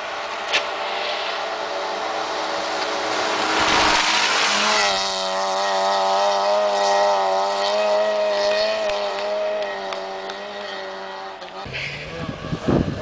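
Small Fiat rally car's engine running at high revs as the car approaches along the stage, its pitch wavering up and down. About a second and a half before the end the sound cuts abruptly to another car's engine in short bursts.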